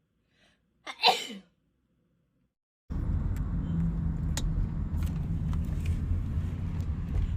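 A girl sneezes once, sharply, about a second in, after a faint intake of breath. From about three seconds in, a steady low rumble with a few faint clicks.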